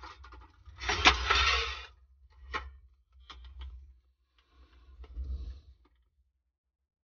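Handling noises: a loud rustle lasting about a second, starting about a second in, then scattered clicks and taps, over an on-and-off low rumble.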